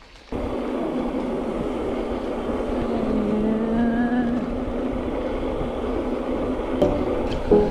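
Wind rushing over the GoPro microphone and tyres rolling on asphalt as an e-mountain bike coasts fast downhill: a steady rushing noise that begins abruptly just after the start, with a faint wavering whine about three to four seconds in.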